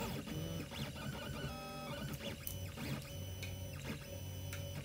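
A 3D printer running, its stepper motors whirring in short moves that change pitch in steps. There are a few light clicks of small plastic parts being handled.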